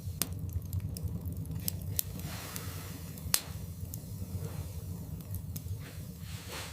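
Wood fire burning in a fireplace, with a steady low rumble and scattered crackles from the logs. One loud pop comes about three and a half seconds in.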